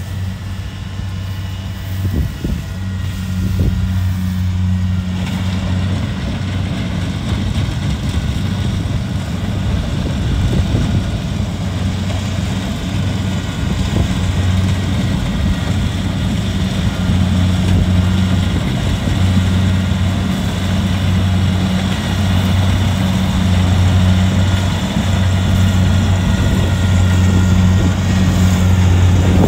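Kubota rice combine harvester running steadily while harvesting: a low diesel engine hum under the whirr of its cutting and threshing gear, growing gradually louder.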